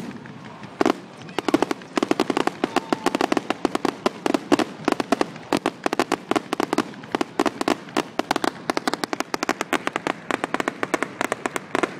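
Aerial fireworks bursting: a rapid, dense string of sharp bangs and crackles, many per second, starting about a second in and carrying on without a break.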